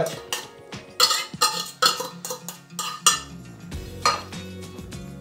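Metal fork clinking and scraping against a ceramic bowl while mashing canned tuna, several sharp scrapes in the first three seconds. Soft background music comes in about three seconds in.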